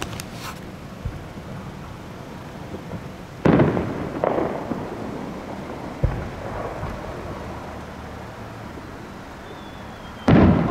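Aerial fireworks shells bursting: several sudden booms, the loudest about a third of the way in and again near the end, with smaller ones between. Each boom trails off in a long, slowly fading rumble.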